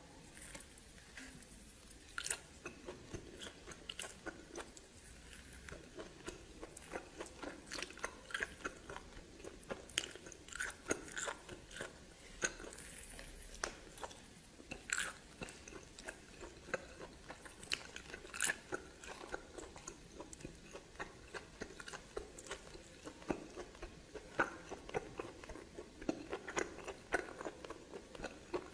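Close-miked chewing and biting of steamed snake, with many short clicks and crunches.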